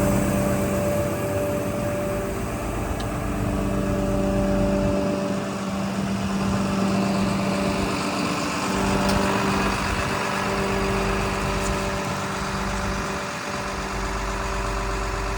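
Komatsu D61PXi-24 bulldozer's diesel engine running steadily.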